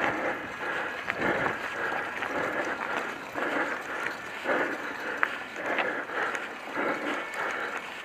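A person breathing hard and rhythmically close to the microphone, about one breath a second, with scattered light clicks and rattles of movement along a dirt trail.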